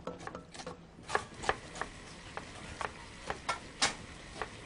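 Kitchen clatter: sharp, irregular knocks and clicks of utensils at work, one or two a second, starting about a second in.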